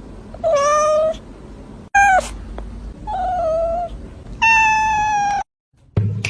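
A cat meowing four times, each call a clear pitched meow; the second is short and falls in pitch, and the last is the longest and highest.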